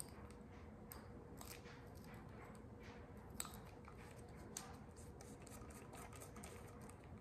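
Near silence: faint, irregular clicks of a spinning reel being handled and turned, over a faint steady hum.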